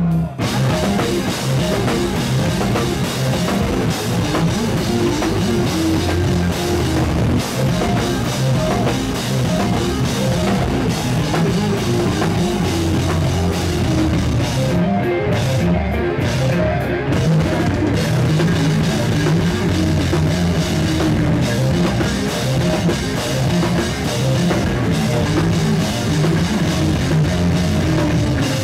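A live instrumental math-rock band playing loudly: distorted electric guitars, bass guitar and a drum kit with cymbals.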